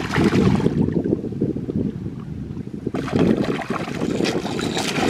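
A hooked musky thrashing at the surface beside the boat, splashing in two bouts, one at the start and one about three seconds in, over a steady wind rumble on the microphone.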